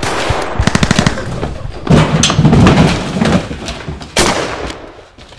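Film gunfire sound effects in a shootout: a rapid burst of shots, then a heavier, louder volley about two seconds in, and a single shot a little after four seconds that rings out and fades.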